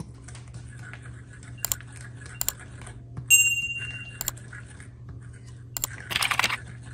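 A metal fork stirring flour into wet batter in a glass mixing bowl, clicking against the glass several times. One strike about a third of the way through rings briefly, and a burst of scraping and stirring comes near the end. A steady low hum runs underneath.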